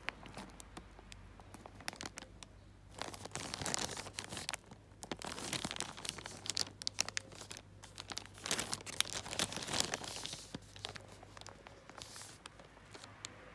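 Clear plastic packaging bag crinkling and crackling as it is handled, in irregular bursts from about three seconds in that die away near the end.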